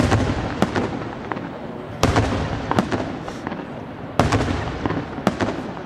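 Aerial fireworks shells bursting in the sky: three loud booms, about two seconds apart, each trailing off in an echo, with smaller reports in between.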